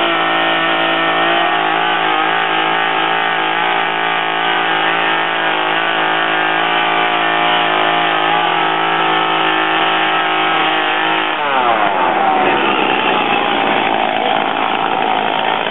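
Gas chainsaw running at high, steady revs. About eleven seconds in, its pitch falls and it runs rougher.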